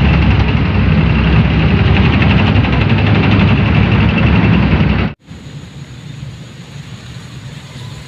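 Military tank engine noise, loud and low, starting and stopping abruptly like an added sound effect; it cuts off about five seconds in, leaving a quieter steady noise.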